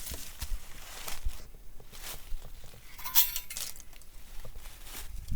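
Pieces of dense, dry split oak firewood knocking together as they are handled, with scattered small knocks and one sharper clinking knock that rings briefly about three seconds in.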